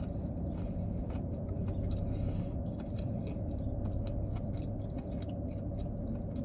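A person chewing fried chicken gizzards and livers close to the microphone, with many small wet clicks of the mouth. A steady low hum runs underneath.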